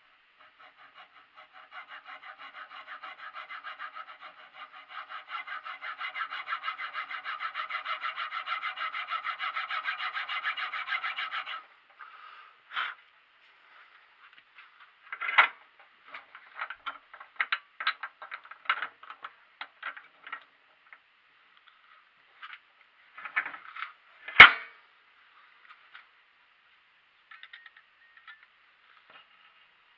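A hand tool rasps in fast, even strokes across a small homemade brake block, bringing it down to thickness, then stops abruptly about twelve seconds in. After that come scattered clicks and knocks of tools and parts being handled, with one sharp knock, the loudest sound, about two-thirds of the way through.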